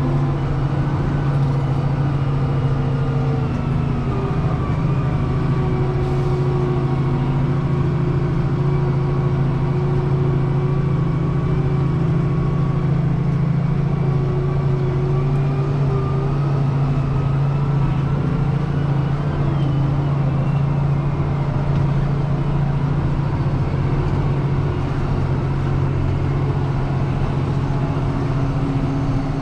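Deutz-Fahr 6185 TTV tractor's six-cylinder diesel engine heard from inside the cab, running steadily with a continuous drone whose pitch wanders slightly.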